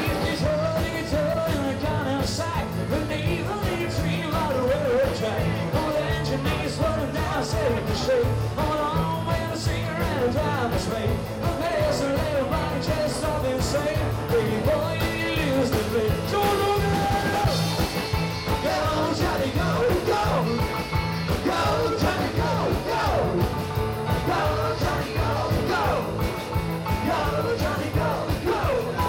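Live rock-pop cover band playing: a male singer over drums, bass and keyboard, with a steady driving beat.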